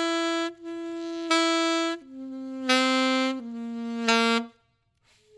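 Alto saxophone holding three long notes that step down in pitch, each switching between a dull, dampened tone and a bright, punchy one. This is ghost ("dooden") tonguing: the tongue rests on part of the reed to mute it, then comes off for an accent. The playing stops about half a second before the end.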